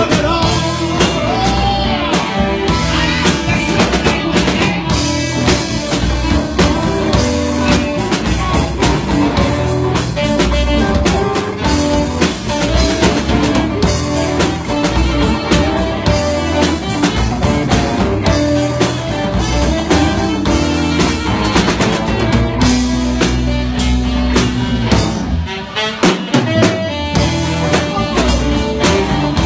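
Live blues-rock band playing an instrumental stretch with no vocals: electric guitar over bass guitar and a drum kit, with a saxophone joining near the end.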